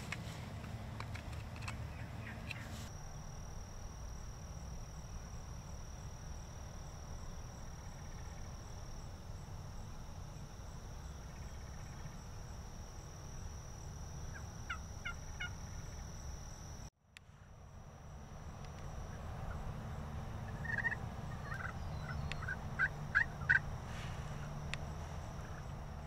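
Wild turkeys calling: a short series of quick notes about halfway through, then several more near the end, the loudest of them near the end, over a steady low rumble.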